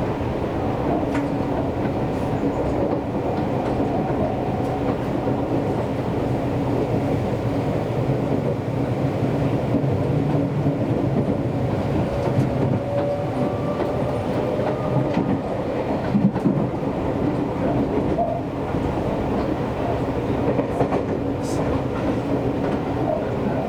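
Seibu Railway commuter train running between stations, heard from on board: a steady rumble of wheels on rail with a faint motor tone, and a few clicks from the track.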